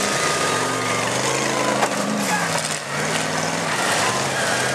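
Demolition derby cars' engines revving up and down as they manoeuvre, with a crunch of a collision about two seconds in.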